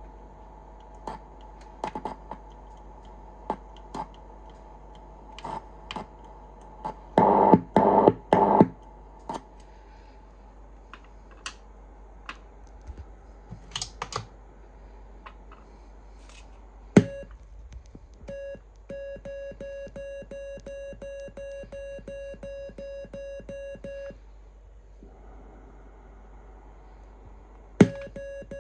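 Super RockMite QRP CW transceiver's sidetone: one steady beep keyed on and off as a rapid, even string of Morse dits, with the transmitter putting out power. It starts after a sharp click about 17 seconds in, stops about 24 seconds in, and resumes near the end. Earlier there are scattered clicks and three loud rough bursts around 7 to 8 seconds in, over a faint hum.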